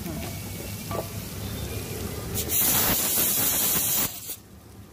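Masala paste frying in a large aluminium pot as it is stirred with a silicone spatula. About two and a half seconds in, a loud sizzling hiss starts and cuts off sharply after about a second and a half.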